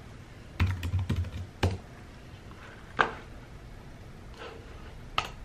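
Keys tapped on a slim aluminium Apple wireless keyboard: a quick run of keystrokes about half a second in, then a few single keystrokes spaced well apart.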